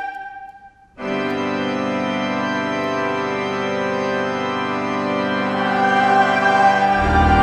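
The previous chord fades away in the cathedral's reverberation, then about a second in a Harrison and Harrison pipe organ enters with a long sustained chord. Near the end the chord grows fuller and a deep pedal note comes in underneath.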